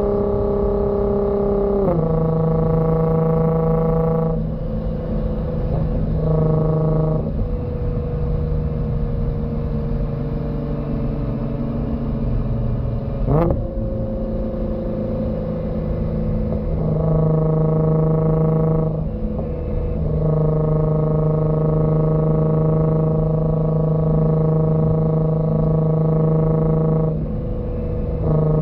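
Nissan GT-R R35 twin-turbo V6 exhaust, fitted with an HKS Legamax 85 mm system, while driving: a steady drone that drops in pitch about two seconds in. The drone fades for stretches, once with a slowly falling note, then comes back strongly, with one short sharp click about halfway.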